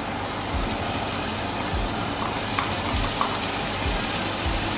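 Onion, garlic and freshly added chopped tomato sizzling steadily in hot oil in a stainless steel frying pan, with a few light clicks about halfway through.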